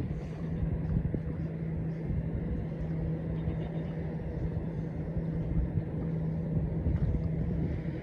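An engine running steadily with a constant low hum, over a low rumble of wind on the microphone.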